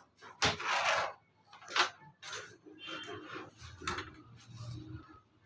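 Workshop handling noises: three sharp knocks about 0.5, 1.8 and 3.9 s in, with short scraping or rubbing sounds between them.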